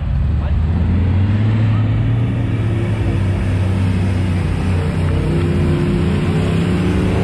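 An off-road vehicle's engine running steadily at low revs, its pitch climbing gradually near the end as it picks up revs.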